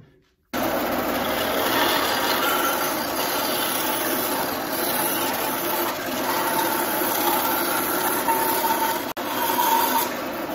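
Bandsaw running and ripping a length of wet peach log, a loud steady whir with faint whining tones coming and going. It starts abruptly about half a second in and drops out for a moment near the end.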